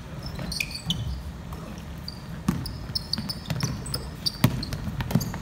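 Basketball bouncing on a wooden gym floor, with sharp thumps scattered through, the loudest about four and a half seconds in, and short high squeaks of sneakers as players run on the court.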